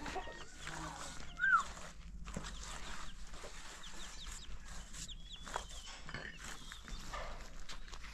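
Bird calls: scattered short high chirps, with one louder arched call about one and a half seconds in, over a few faint knocks.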